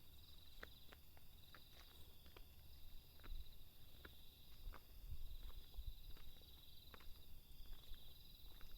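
Crickets chirping in a faint, steady high trill that pulses in phrases, with scattered light clicks and a few low thumps.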